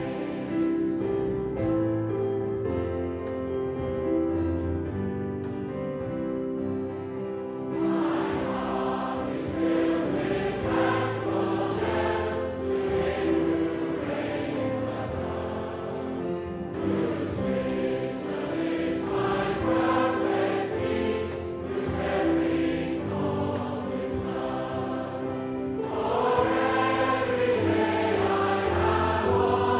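Choral music: a choir singing over held chords, with the voices coming in more strongly about eight seconds in.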